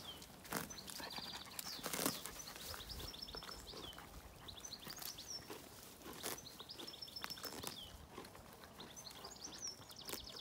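A pony grazing, tearing off mouthfuls of grass and chewing, heard as faint scattered snaps and crunches, the loudest about two seconds in.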